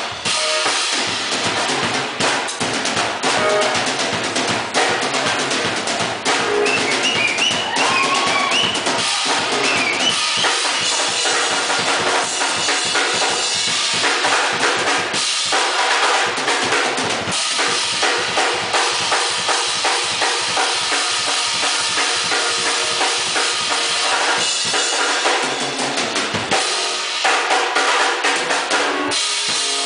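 Music driven by a drum kit, with kick drum and snare hits in a dense, steady rhythm and other instruments underneath.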